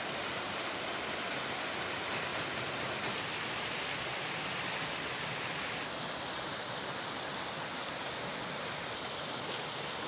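Shallow, rocky stream running over stones: a steady rush of water whose tone shifts slightly about six seconds in.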